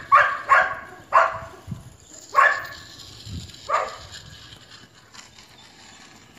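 A dog barking: about six short, sharp barks. The first few come in quick succession, then they are spaced out and get weaker, ending about four seconds in. A couple of low thuds sound underneath.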